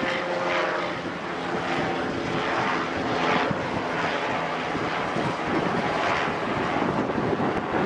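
A helicopter flying overhead: a steady engine and rotor drone.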